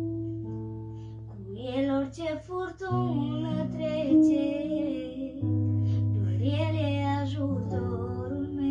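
Yamaha electronic keyboard playing held chords over a sustained bass, accompanying a girl singing a slow Christian worship song. Her voice comes in about a second and a half in, in long phrases with vibrato.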